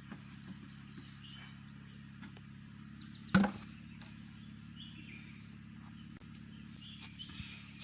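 A single sharp knock a little over three seconds in, over a steady low hum and faint bird chirps.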